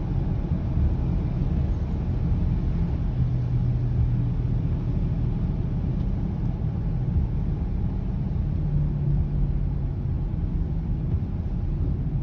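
2020 Subaru Ascent with a steady low hum over a rumble, swelling a little a few seconds in and again past the middle: the low humming noise the owner is recording as a fault in the car.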